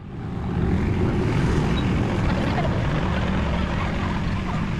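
Wind buffeting a small camera microphone, a steady low rumble over an even outdoor hiss, fading in at the start.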